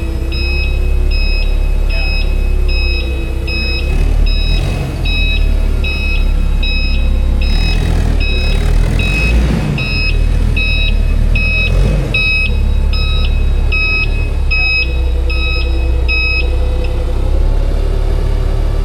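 An electronic beeper sounding steadily, about one and a quarter beeps a second, over the steady low rumble of a running truck engine; the beeping stops near the end.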